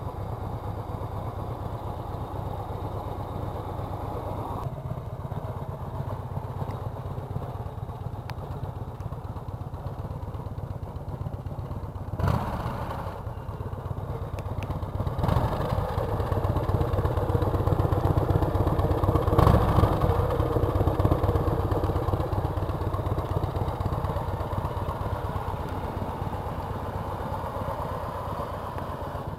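Harley-Davidson Electra Glide's V-twin engine idling with a steady low rumble. A sharp knock comes about 12 seconds in, and the engine runs louder for several seconds past the middle.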